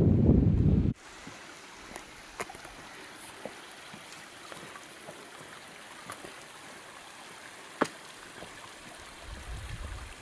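Wind buffeting the microphone, cut off abruptly about a second in, then the steady rush of a mountain stream with a few sharp clicks over it, the loudest near the end.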